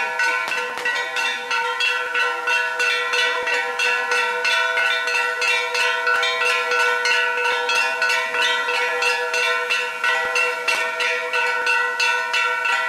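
Bells struck in a quick, even rhythm, about four or five strikes a second, with several pitches ringing on together.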